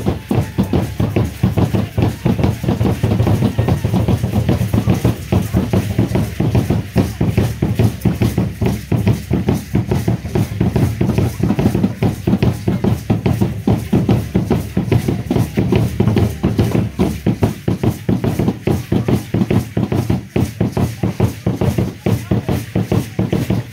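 Drumming for an Aztec dance: a drum beaten in a fast, steady rhythm that keeps going without a break.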